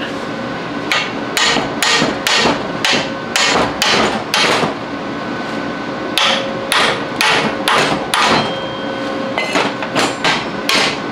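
Steel hammer blows on a wrench fitted to a nut welded onto a broken exhaust manifold stud, about two strikes a second with a short pause midway, jarring the stud to try to break it loose.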